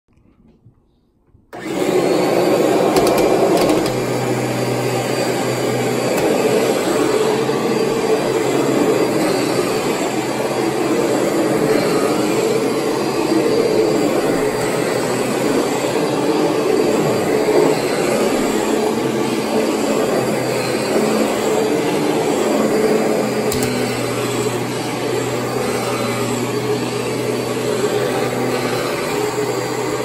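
Kirby G5 upright vacuum cleaner switched on about a second and a half in, then running steadily with a constant motor hum while it is pushed over carpet.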